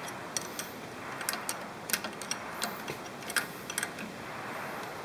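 Light, irregular metallic clicks and ticks as a thin rod pokes around the gears and cast housing of a Bridgeport 8F power feed gearbox, fishing for a loose roller that has broken off inside. The clicks sound over a steady hiss.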